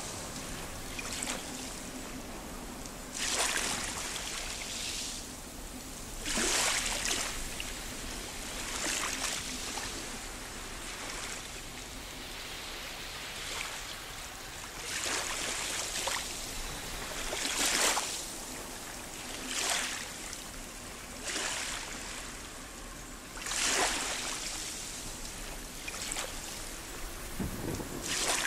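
Small waves washing over beach rocks, with a hissing surge every two to three seconds over a steady background wash.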